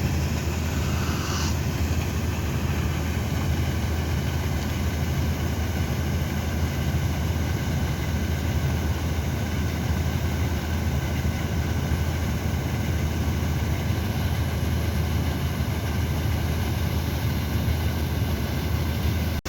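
Combine harvester running steadily while unloading soybeans, an even low engine drone that does not change.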